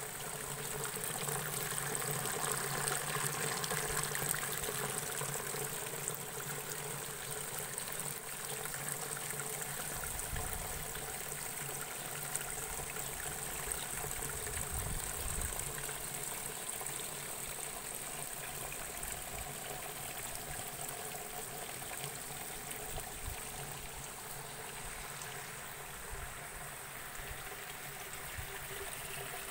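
Nutrient solution trickling steadily out of hydroponic lettuce growing channels into a collecting gutter, a continuous running-water sound. A few low rumbles come in about ten and fifteen seconds in.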